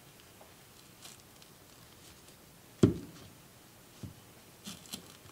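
Plastic spatula scraping and prying support material off a clear 3D-printed part, giving soft scratches and small clicks. A sharp knock about three seconds in is the loudest sound, and a smaller knock follows about a second later.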